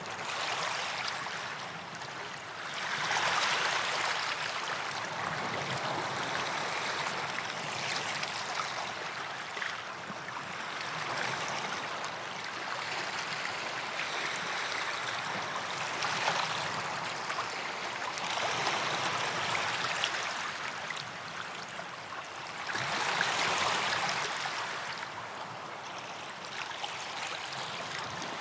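Small waves breaking and washing up a sandy beach, the surf hiss swelling and fading every few seconds.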